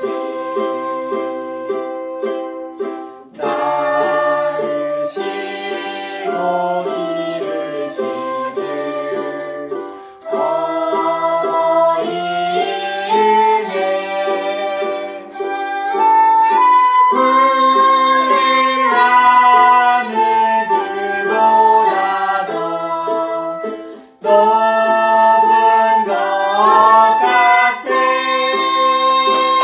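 Voices of a man, a woman and a girl singing a song, accompanied by a flute playing the melody and a ukulele, with brief breaks between phrases.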